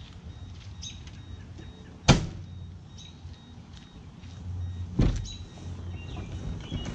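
A car's trunk lid slammed shut, a single sharp thump about two seconds in, followed about three seconds later by a second, slightly softer thump.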